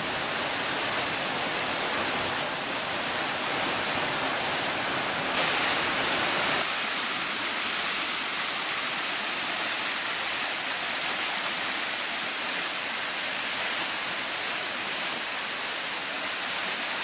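Waterfall: a steady rush of falling water, with small shifts in the noise about five and six and a half seconds in.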